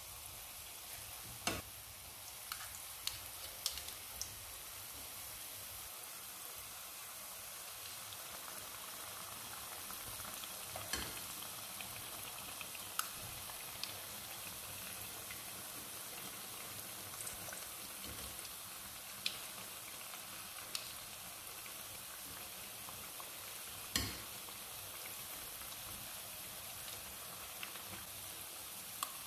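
Small balls of batter deep-frying in hot peanut oil, a steady sizzle, with scattered clicks of metal spoons against the pan as more batter is dropped in; one louder knock near the end.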